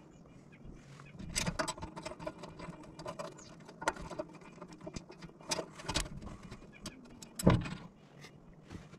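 Small metal parts clicking and clinking, with a few sharper knocks, as screws and the breaker interlock's slide plate are handled and set against a steel electrical panel cover.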